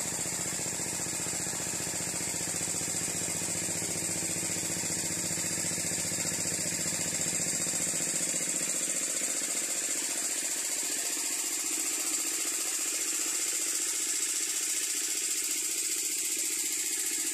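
Pump engine running steadily with a fast knocking beat, dewatering the pond; its deep pulsing grows fainter about halfway through.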